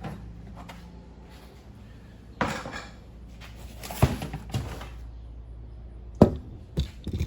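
Handling noises in a workshop: a short rustle or scrape, then a few sharp knocks and clatters of hard objects being moved, the loudest about six seconds in, over a low steady hum.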